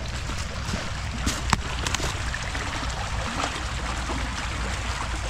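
Floodwater running in a steady rush, with a low rumble underneath and a few sharp clicks about a second and a half in.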